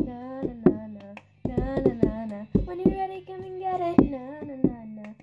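A girl singing while beating out the cup-song rhythm with a plastic cup: hand claps and the cup tapped and slapped down on a hardcover book on a table, in a steady repeating pattern.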